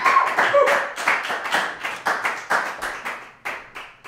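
Small audience applauding at the end of a song, dense clapping at first that thins out into scattered single claps and fades away.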